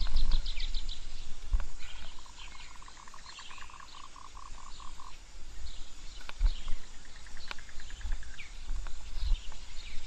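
Small animals calling in the surrounding greenery with rapid pulsed trills, one steady trill running from about two to five seconds in. Scattered dull low thumps on the helmet camera come from a rider walking and handling a bicycle over a log bridge.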